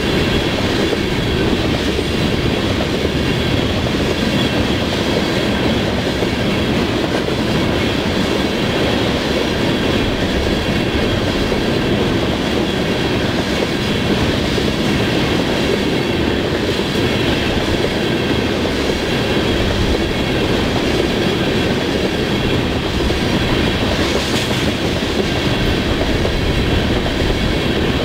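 Freight train tank cars rolling past: a steady rumble and clatter of steel wheels on the rails, with a thin high ringing throughout and one brief sharper clank near the end.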